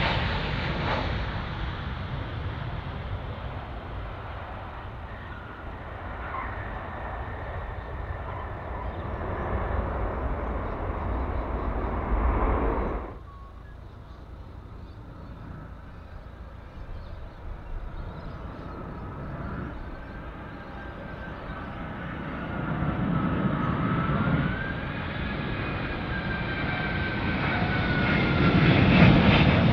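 Jet airliner engines: a loud jet noise that fades away, cut off abruptly about thirteen seconds in. The sound then picks up quieter engine noise with a whine that slides up and down in pitch, growing louder toward the end as another jet comes closer.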